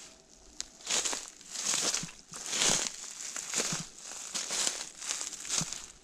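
Footsteps through dry fallen leaves and pine needles, about one step a second, starting about a second in.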